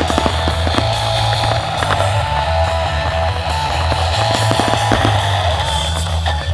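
Guitar-led rock music, with firework bursts banging and crackling at intervals over it.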